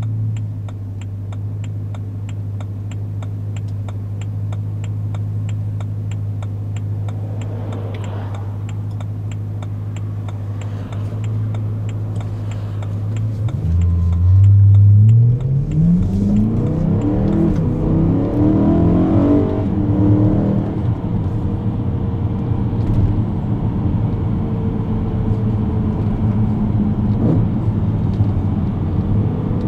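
BMW E92 M3's 4.0-litre V8 with a Tubi exhaust, heard from inside the cabin, running steadily at low revs in first gear. About 14 seconds in it revs hard as the car accelerates, the pitch climbing in several steps through the gears into third.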